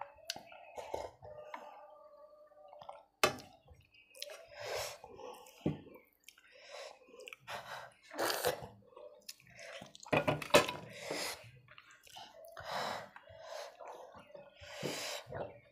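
Close-up eating sounds of runny lentil dal: wet slurps from the bowl rim and from licked fingers, chewing and squelching as a hand mixes the dal on a steel plate. A single sharp knock comes about three seconds in.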